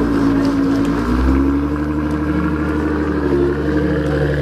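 Nissan GT-R's twin-turbo V6 exhaust running steadily at low revs as the car pulls slowly away, smoke puffing from the tailpipes.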